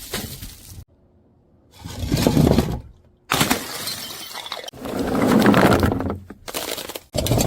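Glass bottles breaking and shattering in a run of short clips, with abrupt cuts between them and a brief silent gap about a second in.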